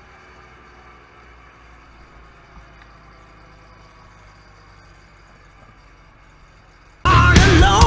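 A faint, steady engine hum, like a truck idling. About seven seconds in, loud rock music with singing starts abruptly.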